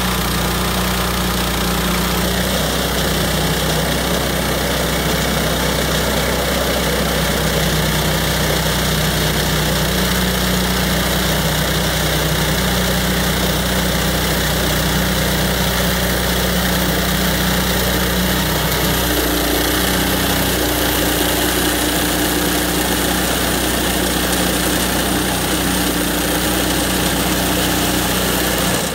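Woodland Mills HM126 bandsaw sawmill's gasoline engine running steadily under load while the band blade saws lengthwise through a log.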